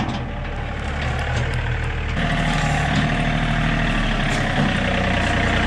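John Deere compact tractor's diesel engine running steadily. About two seconds in it becomes slightly louder, with more hiss.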